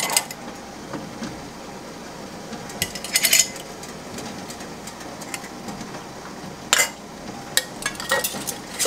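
Glass canning jars and metal kitchen utensils clinking and knocking as jars are handled and filled: a cluster of sharp clinks about three seconds in, another near seven seconds, and several more near the end, over a steady faint hiss.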